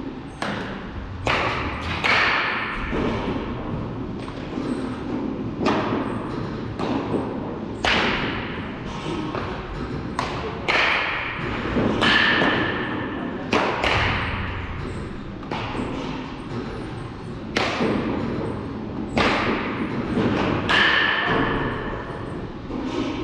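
Baseball practice impacts: a sharp hit every second or two, some close in pairs, several with a brief ringing ping after them.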